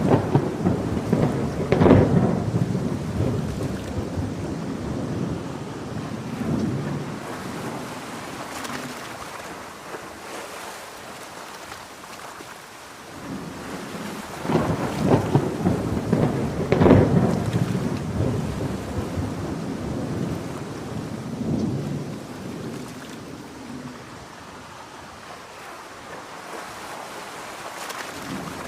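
A thunderstorm: steady heavy rain under two long rolls of thunder. The first breaks at the start and the second about halfway through; each crackles and rumbles away over several seconds.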